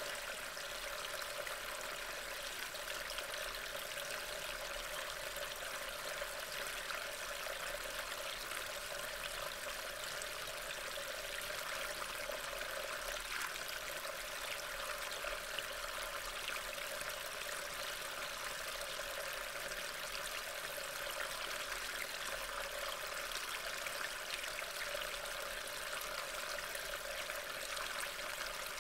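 Steady rain falling on the woodland ground and leaves, an even, unbroken patter.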